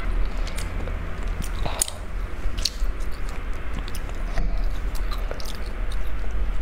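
Close-miked chewing of a mouthful of food, likely the beef-filled flatbread she holds, with many short wet mouth clicks scattered throughout. A steady low hum runs underneath.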